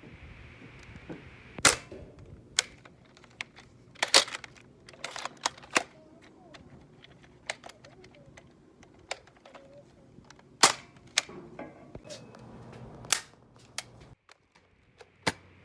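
Small firecrackers going off in a dozen or so sharp, loud pops at irregular intervals, some close together and some several seconds apart.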